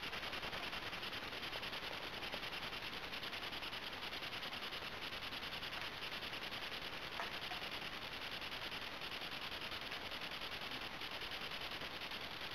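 Steady background hiss with one faint click about seven seconds in.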